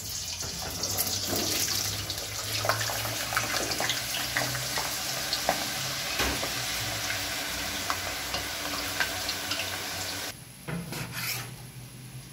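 Cut potatoes sizzling and bubbling as they fry in hot oil in a wok, a dense crackling hiss full of small pops. It cuts off suddenly near the end, giving way to a few quieter strokes of a knife through beef on a cutting board.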